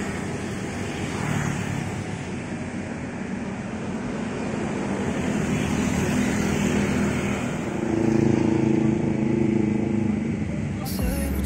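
Street traffic with motorcycle engines running past, one engine loudest about eight to nine seconds in.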